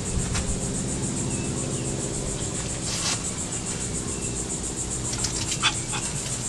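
Steady high-pitched insect chirring, over a low steady hum, with a couple of short clicks.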